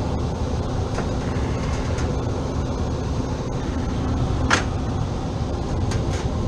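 Air-conditioning equipment running with a steady low hum and rush of air, with a few sharp clicks about four and a half seconds in and near the end.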